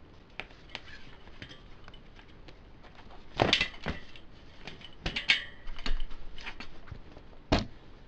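A bicycle tire being worked off the rim of a hub-motor wheel by hand: scattered clicks and rubbing of rubber against the rim and spokes. Louder knocks come about three and a half seconds in, around five seconds in, and near the end.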